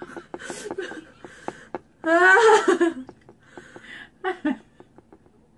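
A woman laughing: breathy giggles, then a louder, squealing laugh about two seconds in, trailing off into short chuckles. Faint clicks from hands working at a boiled egg follow near the end.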